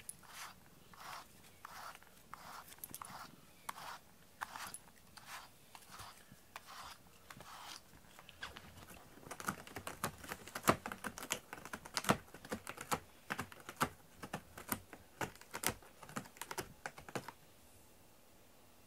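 Cat scratching a corrugated cardboard scratcher with its claws. At first comes an even stroke about every half second or so. Then a faster, louder run of crackly scratches follows and stops shortly before the end.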